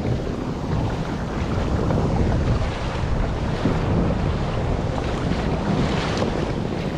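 Wind buffeting the microphone over choppy sea, a steady rush with small waves splashing against the kayak's hull.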